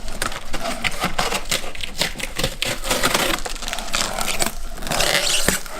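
A large cardboard box being handled, with rapid scraping, rustling and tapping of cardboard and packing throughout.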